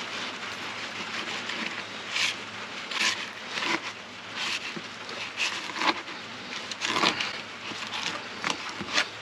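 Kitchen knife cutting and scraping along a bass fillet on a plastic cutting board: short, irregular strokes over a steady background hiss.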